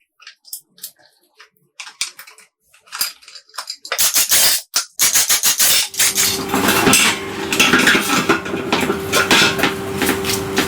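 Light metal clinks and clatter of tools and parts being handled. About six seconds in, a motor starts and runs with a steady hum under continued clattering.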